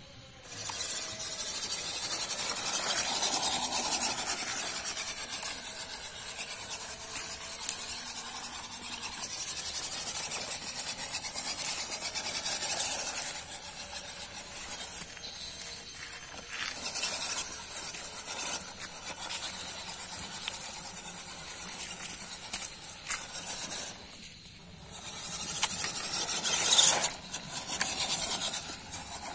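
MN99S RC crawler driving through a shallow muddy stream: a rasping whir from its electric motor and gears, with water splashing around the wheels. A thin, steady high whine runs underneath, and the sound grows louder in bursts near the end.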